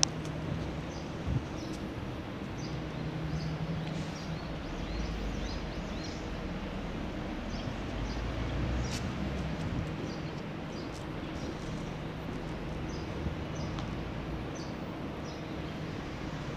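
Small birds chirping in short, repeated calls over a steady low hum and background noise, with a brief knock about a second in.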